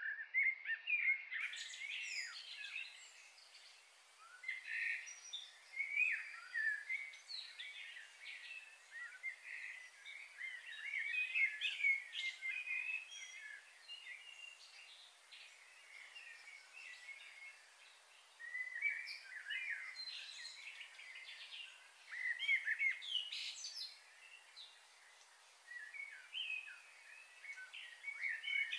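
Birds chirping and calling in short irregular bouts of quick high chirps and trills, over a faint steady background hiss.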